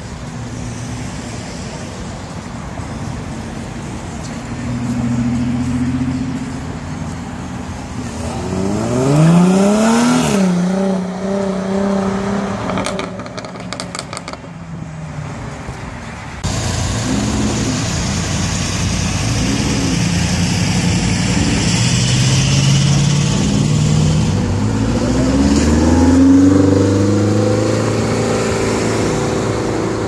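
Sports car engines accelerating away one after another, their exhaust rising in pitch as they rev and dropping back at a gear change, twice.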